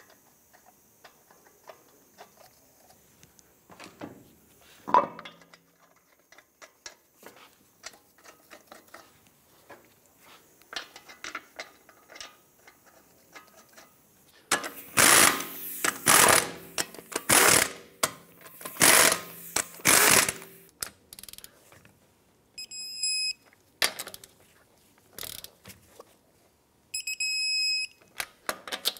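Lug nuts threaded onto the wheel studs by hand with small metal clicks and a knock. An impact gun then runs them down in a string of short loud bursts. After that, an electronic torque wrench beeps in several spells as the lug nuts reach their 100 foot-pound setting.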